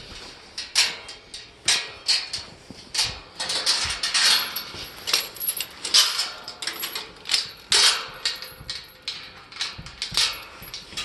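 Footsteps crunching over snow-dusted, frozen ground and straw, with the rustle of a coat. Near the end, a gate's metal chain clinks as it is handled.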